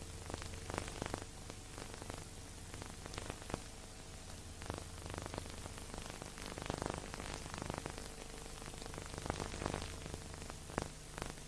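Steady hiss with scattered crackles and clicks over a low hum: the surface noise of an old silent-film transfer that has no soundtrack.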